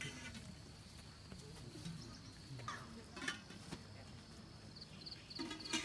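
Faint outdoor ambience: a steady high-pitched whine under a few short, faint calls or distant voices, about three seconds in and again near the end, with a sharp click near the end.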